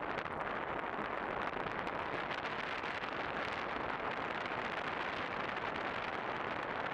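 Steady rushing noise at an even level, with faint ticks scattered through it.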